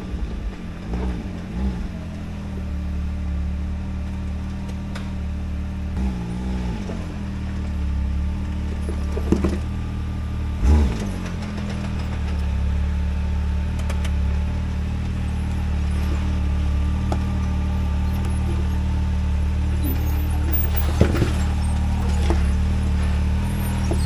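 Can-Am Maverick X3's turbo three-cylinder engine running at low revs, with a few brief rises in revs and several sharp clunks. It grows slowly louder.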